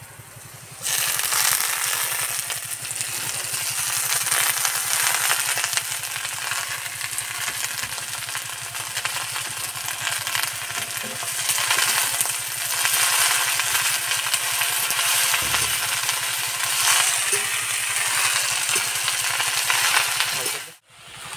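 Helencha greens dropped into hot mustard oil in a wok, sizzling loudly from about a second in as they are turned with a spatula. The sizzle cuts off suddenly near the end.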